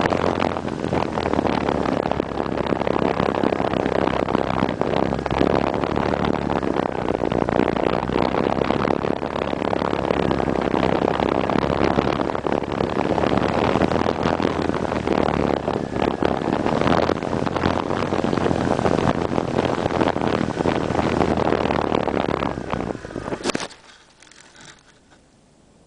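Wind rushing over the onboard camera's microphone of a GWS Slow Stick RC airplane in flight, with the steady hum of its brushless direct-drive motor and propeller. Near the end a sharp knock as the plane comes down onto the grass, and the sound falls away to faint hiss.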